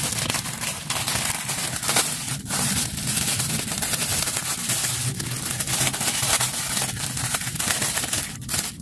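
Clear plastic toy packaging bag crinkling and crackling continuously as it is handled and opened by hand.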